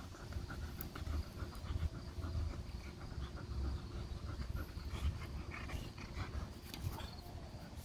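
A large dog panting and breathing hard while gripping and tugging a rope toy.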